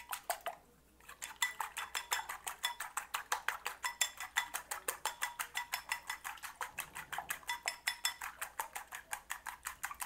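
Wooden chopsticks beating eggs in a ceramic bowl, clicking against the bowl in a fast, even rhythm of about seven strokes a second. After a few strokes and a brief pause at the start, the beating runs steadily on.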